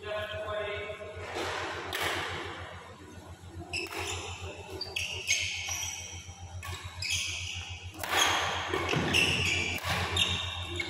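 Badminton singles rally: sharp racket strikes on the shuttlecock and short, high shoe squeaks on the court mat, busiest and loudest in the last few seconds. A steady low hum runs underneath.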